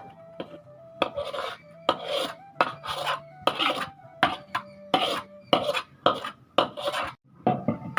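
A cooking utensil scraping and clattering in a pan in quick, repeated strokes, about one and a half a second, over soft background music with a simple melody.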